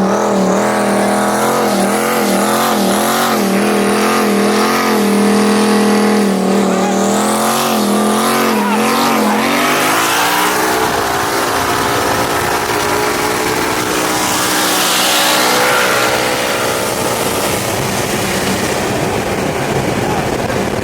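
A nitrous ZR1 and a twin-turbo Mustang in a 60 mph roll race: engines running at a steady cruise, their tones wavering against each other, then both going to full throttle about nine seconds in, the pitch climbing as they accelerate hard, with heavy wind and road noise.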